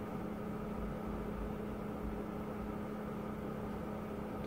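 Steady low hum over a faint rumble and hiss: constant background machine or room noise, with no distinct event.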